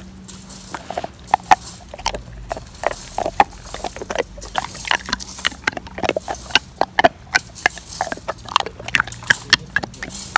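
Bernese mountain dog close to the microphone, making a quick, irregular run of short clicks and snuffles.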